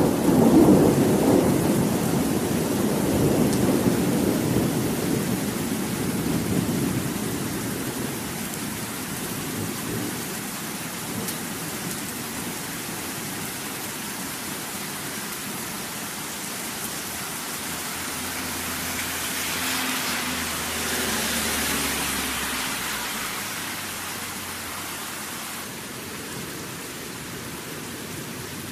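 Thunderstorm: a loud roll of thunder at the start rumbles away over several seconds, leaving steady heavy rain. The rain swells for a few seconds past the middle, with a faint low rumble under it.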